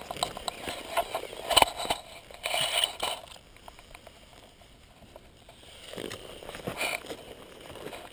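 Rustling and scraping of dry brush and gravel close to the microphone, with a sharp knock about one and a half seconds in. It goes quiet for a few seconds in the middle, then the rustling picks up again.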